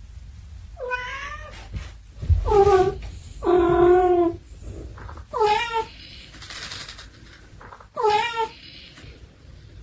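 A cat meowing five times in separate calls, the middle one longer and held steady.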